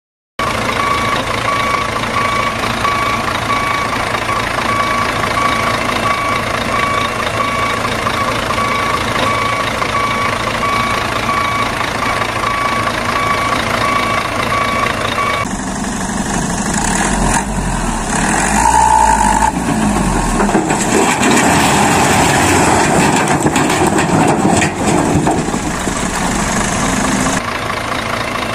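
Truck sound effect: a truck engine running with a reversing alarm beeping rapidly and evenly for about the first half. Then the beeping stops and a heavier, rougher engine rumble takes over, easing off near the end.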